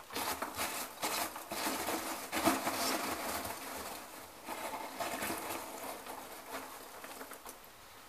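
Hands rummaging through the packing material in a cardboard box: a run of irregular rustles and crinkles that thins out toward the end.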